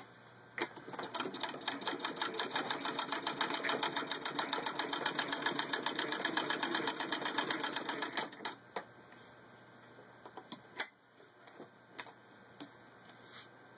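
A hand-cranked 1917 Singer 66-1 sewing machine stitching through six layers of denim: a fast, even clatter of needle strokes for about eight seconds, then it stops. A few separate clicks follow.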